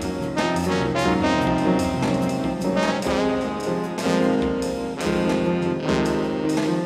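Instrumental synthesizer music with brass-like sustained chords and melody lines, from a GEM S/3 and a Crumar Performer.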